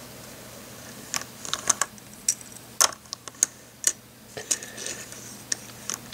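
Hard plastic LEGO pieces clicking and tapping as a minifigure on a skateboard is handled and set down on a tabletop. The clicks come irregularly, starting about a second in.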